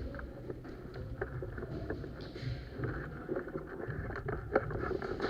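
Low, uneven wind and handling rumble on the microphone, with a few faint, sharp clicks scattered through it.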